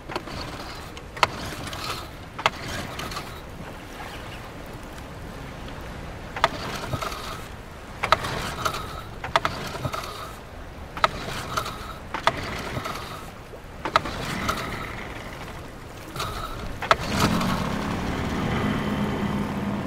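A small boat being handled on water: irregular knocks over a wash of water noise, then a steady hum that starts about seventeen seconds in.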